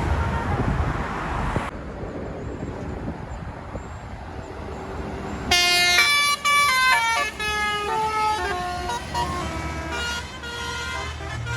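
Basuri telolet multi-note air horn on a bus playing a tune of stepping notes, starting about halfway through. Before it, a loud low rumble cuts off suddenly about two seconds in, leaving a quieter hiss.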